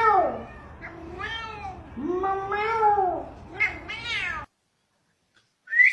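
Cat meowing repeatedly: four or five arched meows, one of them long, about two seconds in. The sound cuts off suddenly about four and a half seconds in, and a brief rising squeak follows near the end.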